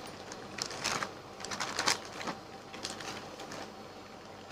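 Clear plastic packaging bag crinkling and rustling in the hands in short irregular spells as a garment is handled in it.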